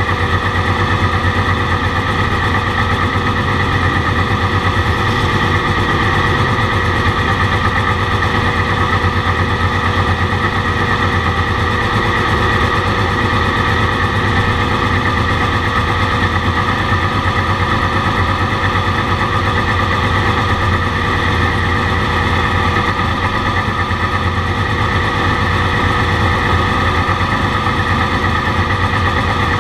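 Porsche 935's turbocharged flat-six idling steadily, heard from inside the cockpit.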